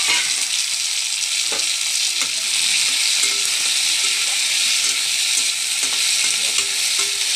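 Tomato wedges, green chillies, dried fish and onions sizzling in hot mustard oil in a steel kadai, a steady frying hiss, with a few short knocks as the pan is stirred.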